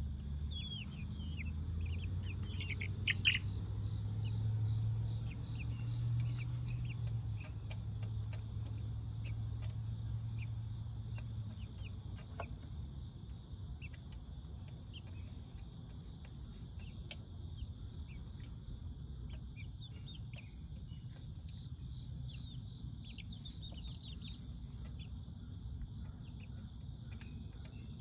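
Insects trilling steadily in one high tone, with scattered short cheeps from young chickens, most of them in the first few seconds and again around three-quarters of the way through. A low rumble runs under the first half and then fades.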